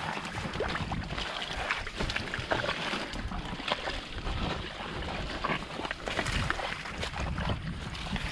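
Wind buffeting the microphone with a fluctuating low rumble, and many short rustles and clicks scattered through it.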